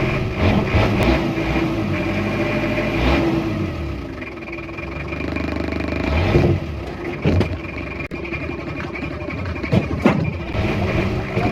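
An off-road vehicle's engine running and revving, its pitch dropping and then climbing again, with several sharp knocks in the second half.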